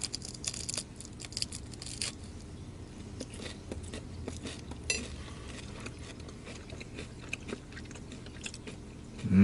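A person chewing whole salt-grilled lake prawns: dense crunching in the first two seconds, then lighter, scattered crunches, with one sharper click about five seconds in.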